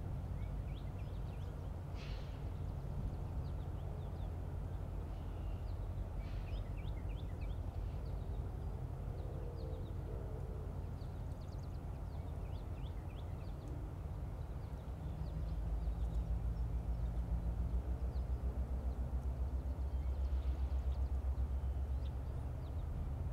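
Diesel freight locomotives running with a low, steady engine rumble that grows louder and throbs from about two-thirds of the way in. Birds chirp over it now and then.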